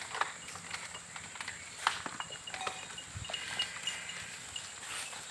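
Outdoor ambience around a herd of cattle: scattered soft clicks and rustles, with faint short high chirps repeating from about two seconds in.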